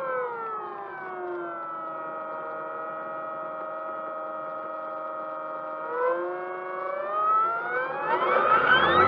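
Motor whine with several pitches stacked together. It glides down in pitch at the start, holds steady, dips briefly about six seconds in, then climbs steeply near the end to a higher, louder steady whine, as the motor is throttled down and back up.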